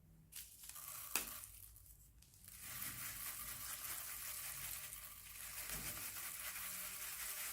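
Slime being worked with plastic piping bags: two sharp clicks in the first second or so, then a steady crackling hiss from about two and a half seconds in.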